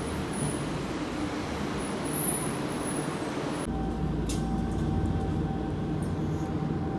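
Nagoya Municipal Subway N1000-series train running into an elevated station, wheels rumbling on the rails with high thin squeals. About three and a half seconds in, the sound cuts abruptly to a steadier train rumble with a faint steady hum.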